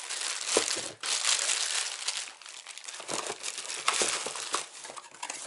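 Blue plastic wrapping crinkling and rustling around a wheel hub bearing as it is wrapped up and pushed back into its cardboard box. The dense rustle thins after about two seconds into scattered crackles and light knocks.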